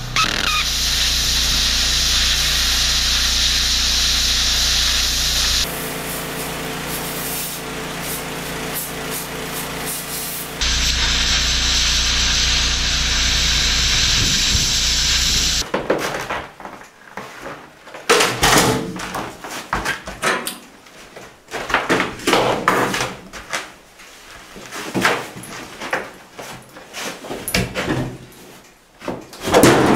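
Plasma cutter hissing steadily as it cuts through a shipping container's corrugated steel wall, dropping away for about five seconds and then cutting again. From about halfway on the cutting stops and irregular knocks and clatter follow.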